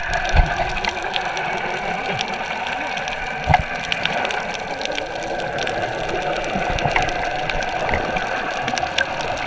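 Steady motor hum heard underwater, most likely the boat's engine, with scattered clicks and crackles throughout.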